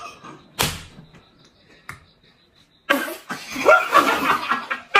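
A single sharp smack about half a second in, then a faint click and a short lull, followed by a couple of seconds of men's voices calling out.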